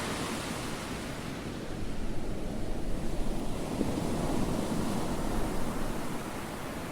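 A steady rushing noise, strongest in the low range, that swells about two seconds in and eases off near the end.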